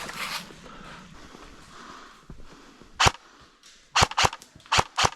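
Airsoft guns firing single shots as sharp cracks: one about three seconds in, then four more in quick succession near the end.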